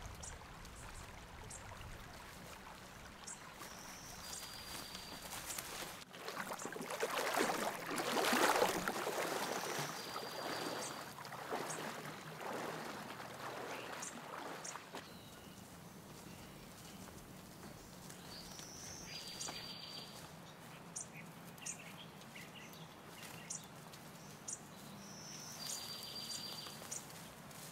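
Mountain forest ambience with birds calling: short high chirps throughout and a clear steady high note repeated four times. In the middle, running creek water swells up, loudest about eight seconds in, then fades away.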